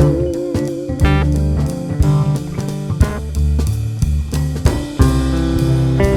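Background music: guitar and bass over a drum kit with a steady beat.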